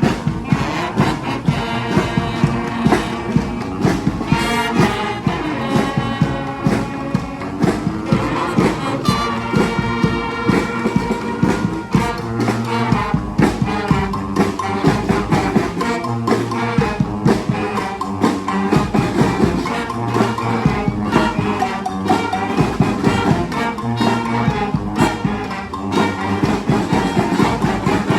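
Street brass band playing a New Orleans-style brass-band tune: trumpets, trombones and other horns over a steady, driving drum beat.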